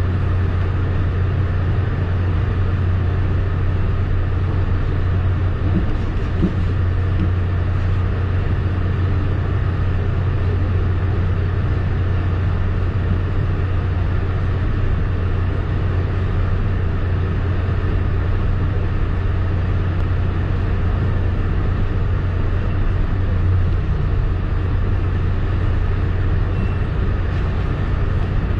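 Steady running noise inside a moving passenger train coach: wheels on the track and the train's drone, with a strong, steady low hum underneath.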